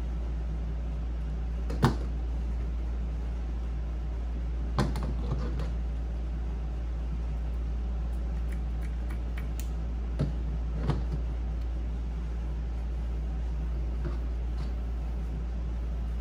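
Scissors cutting through fabric, with a few sharp snips of the closing blades, over a steady low hum.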